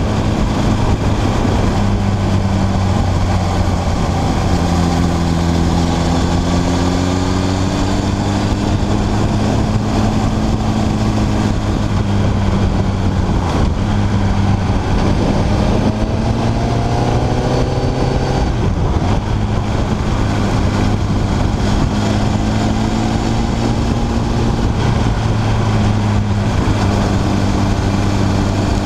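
Motorcycle engine running at road speed under heavy wind noise, its pitch rising and falling with the throttle. About two-thirds of the way through, it climbs steeply and then drops off sharply, as at a gear change.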